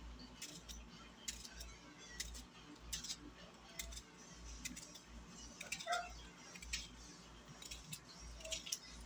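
Faint, irregular clicks and light taps of kitchen utensil work, with one louder knock about six seconds in.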